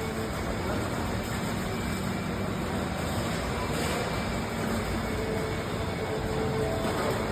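Heavy diesel engines of concrete-pouring equipment running steadily: a constant engine hum over a broad rumble.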